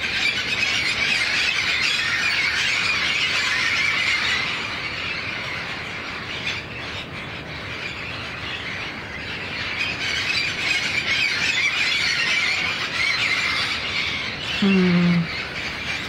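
A large flock of wild parrots screeching and chattering all at once, a dense continuous din that thins a little in the middle and swells again. Near the end a person's voice briefly murmurs.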